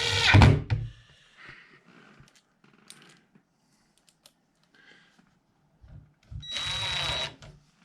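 Electric drill driving hinge screws into a door jamb, in two short runs: one ending about a second in, another near the end. On the second run the screw seems to spin without biting, the sign of a stripped hole with no wood left for the threads.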